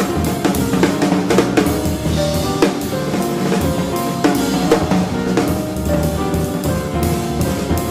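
Live jazz: a drum kit playing busy snare, bass drum and cymbal strokes over an electric bass line, with no vocals.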